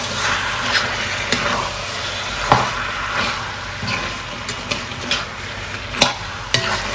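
Chopped chicken with spices sizzling in a pot as it is stirred, with a few sharp knocks of the spoon against the pot.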